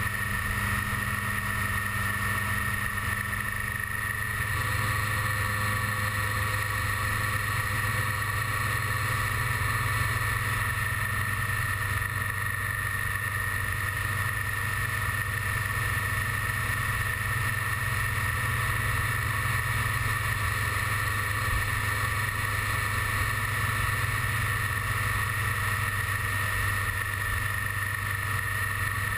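BMW K1300S inline-four motorcycle cruising at steady speed, its engine running evenly under a constant wash of road noise, with a slight change in tone about four seconds in.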